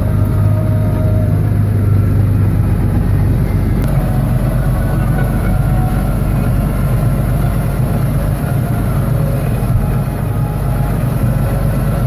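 Farm machinery engine running steadily, a continuous low hum with no change in speed.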